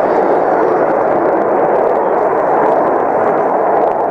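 Steady loud jet roar of an F-4 Phantom's twin J79 turbojets as it flies past overhead.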